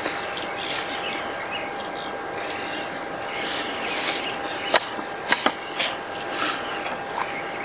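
Fingers crumbling dried herbs over a plastic plate of breadcrumbs, then rubbing and mixing through the crumbs, with a few sharp clicks shortly before the mixing.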